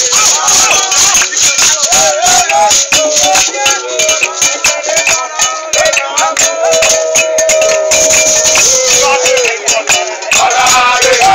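Live Ewe borborbor music: a dense, fast rhythm of shaken rattles, hand-claps and percussion under voices singing, with one long held sung note just past the middle.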